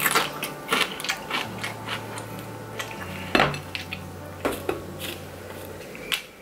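Irregular sharp clicks and crackles of a crisp deep-dish pizza crust being torn apart and handled with plastic-gloved hands, with crinkling of a hot sauce packet being torn open near the end.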